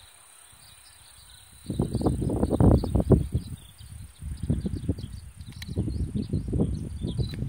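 Wind buffeting the microphone in loud, irregular gusts that start about two seconds in, over insects chirping faintly and steadily high up.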